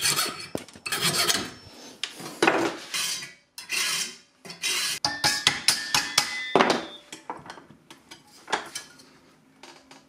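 Brass fork tines being cut off by hand, in a run of rasping back-and-forth strokes, with a brief squeal about five seconds in. The strokes thin out after about seven seconds.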